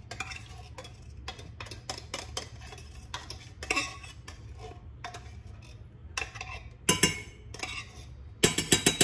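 Metal saucepan and utensils clinking and tapping on a stovetop, scattered knocks with a quick run of sharp taps near the end, over a low steady hum.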